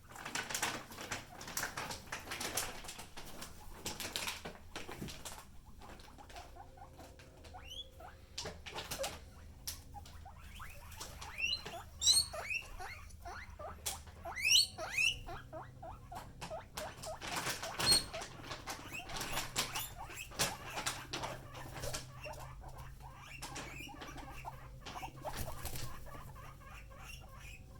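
Plastic bag rattling and crackling, with guinea pigs wheeking in excitement. The loud rising squeals come in two runs near the middle, and smaller squeaks follow later.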